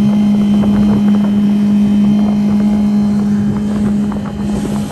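Motor of a rigid inflatable tender boat running at a steady speed, a loud even hum.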